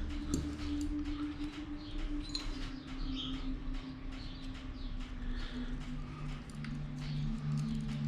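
Scattered light clicks and taps of hands and tools working on a small two-stroke bicycle engine, over a steady low hum.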